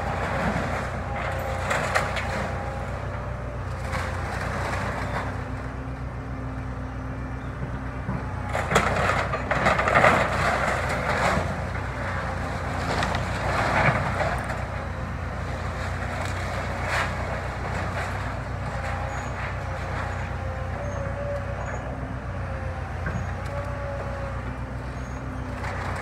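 Kobelco excavator's diesel engine running steadily, with a hydraulic whine that shifts in pitch as the boom and bucket work. Old barn timbers crack and crash as the machine pulls the structure apart, loudest about nine to eleven seconds in and again around fourteen seconds.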